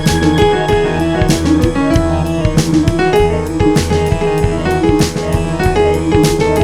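Background music: piano with bass and a steady drum beat.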